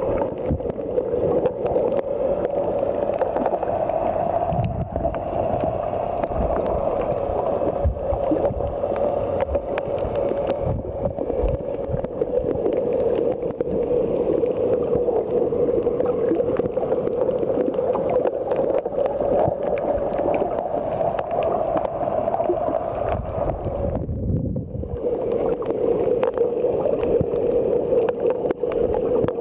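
Underwater ambience picked up by a camera filming on a coral reef: a steady, muffled water rush with many faint clicks and crackles through it. The higher hiss drops out briefly about 24 seconds in, while a low rumble swells.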